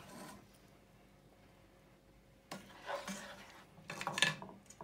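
Serving utensils scraping and knocking in a frying pan as vegetables are scooped out. The sounds come in two short spells starting about two and a half seconds in.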